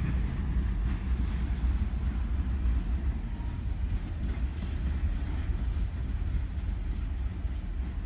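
Freight train rolling past, a steady low rumble of wheels on rail.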